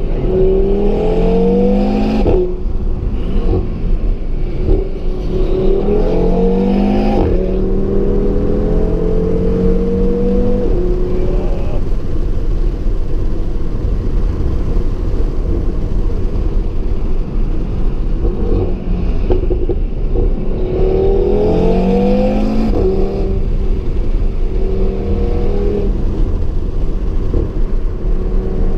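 2017 Audi TT RS's turbocharged inline five-cylinder engine pulling hard through the gears, heard from inside the car: the pitch climbs and drops back at each upshift, about two and seven seconds in, then the engine settles to a steadier cruise before another short run of acceleration with quick upshifts a little past twenty seconds.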